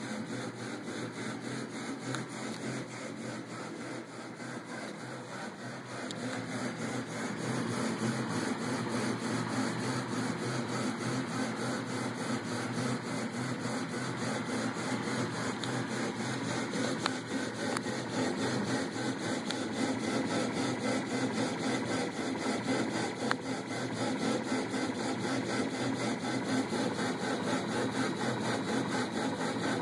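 Stepper motors driving the belt-driven X and Y axes of a home-built mUVe 3D printer gantry during a first test run: a steady mechanical buzz and whine as the carriage moves, growing louder about six seconds in.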